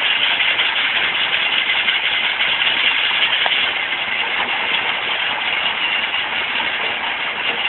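Stone crusher machine running, a loud, dense, steady noise with no clear beat, a little quieter from about halfway through.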